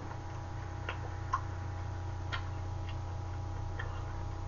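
Room tone: a steady low electrical hum with several faint, irregularly spaced clicks and light taps.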